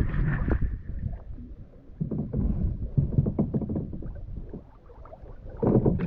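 Water splashing and sloshing around a kayak being handled in the shallows, in uneven strokes, with a louder splash near the end.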